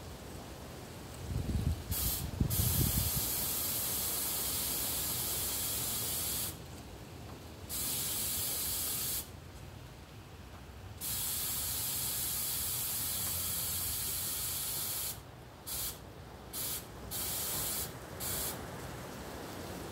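Spraying hiss that starts and stops abruptly about eight times, the longest burst about four seconds and several short ones near the end. A brief low rumble of knocks comes about two seconds in, the loudest moment.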